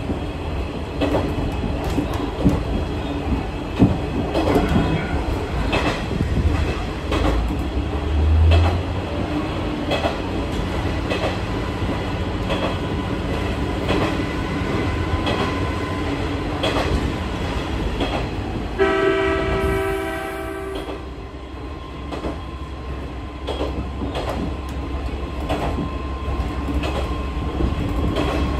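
Kanto Railway Joso Line diesel railcar running, with repeated clicking of wheels over rail joints. About two-thirds of the way in, a train horn sounds once for about two seconds.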